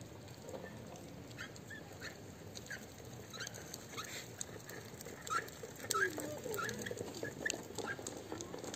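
Stray cats eating food off the pavement close up: a run of short, wet chewing and smacking clicks, with a brief low whine about six seconds in.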